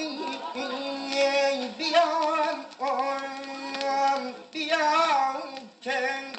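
A mason's sung work call: one man's high voice chanting long held, gliding notes in about five phrases with short breaks, calling down to his labourers for mortar.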